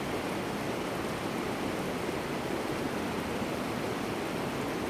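Running water: a steady, even rush of a stream or small waterfall.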